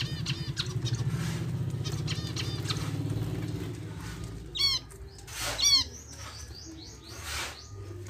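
Small aviary birds, zebra finches and a budgerigar, chirping and calling. A low, rapid fluttering and soft repeated chirps fill the first few seconds. Then come two loud, quick runs of chirping calls just past halfway.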